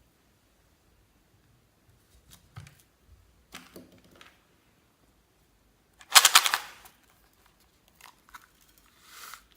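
Clear slime being worked by hand: scattered sticky clicks and pops, with the loudest a short burst of rapid crackling pops about six seconds in.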